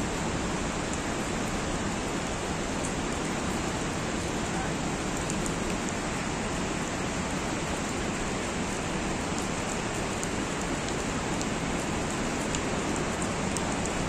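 Steady rain falling: an even, unbroken hiss with occasional faint ticks of single drops.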